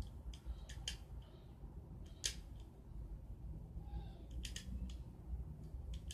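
Irregular light clicks of BBs being loaded by hand into a toy BB gun's plastic magazine.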